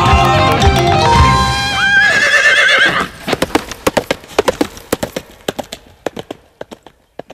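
The music ends about three seconds in, while a horse whinnies in a wavering call over its last notes. Then comes a run of horse hoofbeats clip-clopping at an even pace, fading away.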